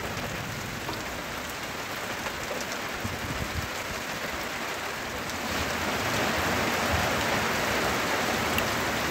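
Steady rain falling on a street and roofs, growing louder about halfway through.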